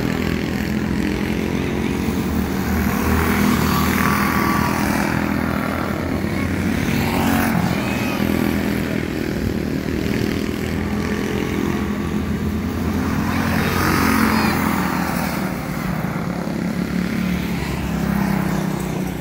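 Several quarter midget race cars' small single-cylinder engines running at speed around a dirt oval, the sound swelling as the cars come past, about four seconds in and again near fourteen seconds.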